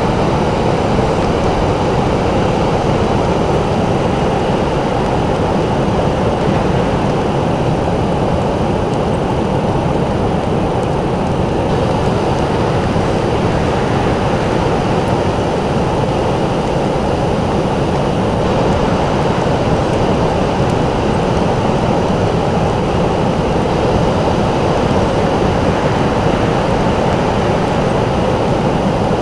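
Pacific surf breaking on a sandy beach: a steady, deep rush of waves with no single crash standing out, the hiss easing a little partway through and filling out again.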